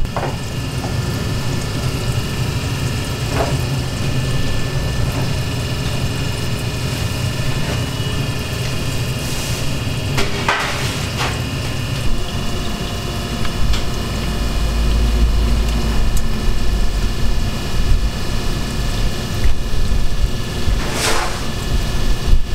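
Twisted glutinous rice pretzel dough deep-frying: hot oil bubbling and sizzling steadily over a low rumble, with a few light clicks of metal tongs against the pieces and the fryer basket.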